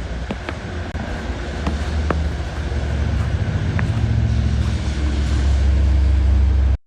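Low, steady rumble of a motor vehicle running, with a few sharp clicks over it; it grows louder and cuts off suddenly near the end.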